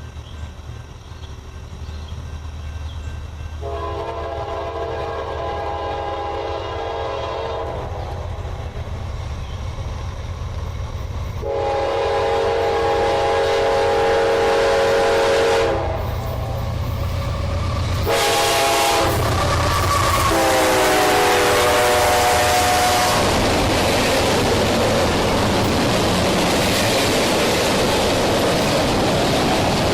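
CSX freight locomotive approaching and passing a grade crossing, sounding its horn in the crossing signal of two long blasts, one short and one long, over a steady low diesel engine rumble. The pitch of the last long blast drops as the locomotive passes. The engine and the rumble of the train on the rails follow.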